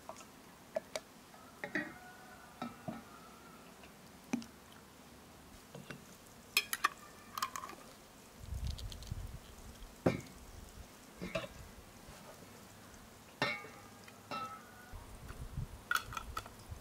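Pots and metal utensils being handled: scattered clinks and knocks at irregular intervals, some ringing briefly, with short stretches of low rumble in the second half.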